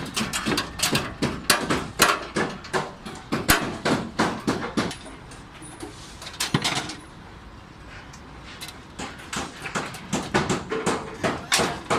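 Hammers striking aluminium formwork on a building site: irregular sharp metallic knocks, several a second at times, easing off for a few seconds in the middle before picking up again.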